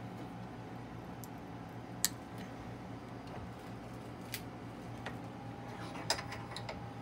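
A vise being tightened on a wristwatch: a few sharp, isolated clicks, the loudest about two seconds in, over a steady low hum.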